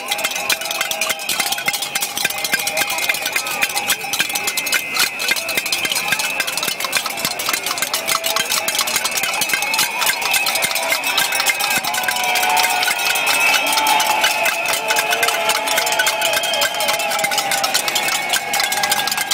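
A protest crowd banging pots and pans: a dense, continuous clatter of metal strikes, with whistling and crowd voices over it.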